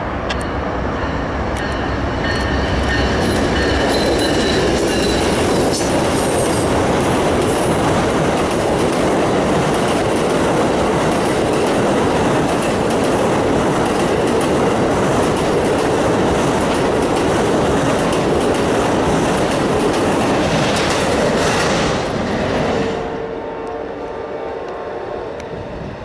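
Amtrak Silver Meteor passenger train passing close by over a railroad bridge: a steady loud rumble and clatter of steel wheels on the rails that drops away sharply about three-quarters of the way through as the train goes by.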